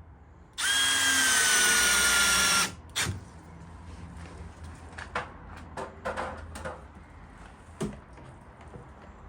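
A handheld power tool runs for about two seconds, its pitch sagging a little just after it starts, then stops. Light knocks and clicks of the tool and work follow.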